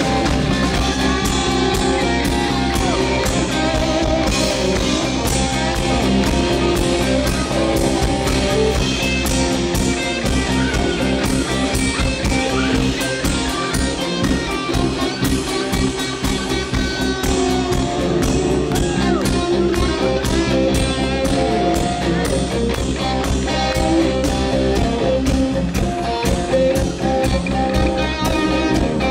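Live rock band playing: electric guitars over bass and a drum kit keeping a steady beat.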